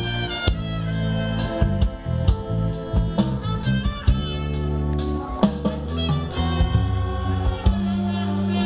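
Live orchestra music: many instruments play sustained and plucked notes, marked by regular percussion strokes.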